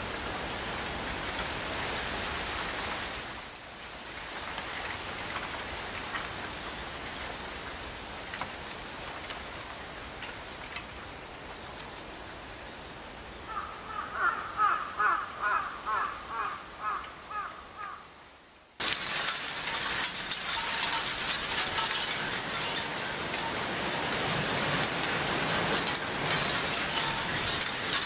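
Outdoor ambience with a steady hiss of wind in the trees. About halfway in, a bird gives a quick series of about ten short calls over four seconds. After a brief drop-out the sound cuts to a louder, crackling rustle full of small clicks.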